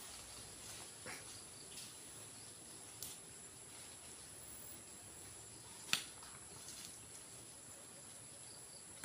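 A steady high-pitched insect drone, as of crickets, with a few short sharp clicks, the loudest about six seconds in.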